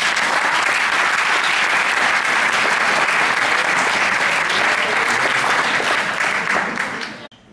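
Audience applauding, steady and loud, cutting off suddenly near the end.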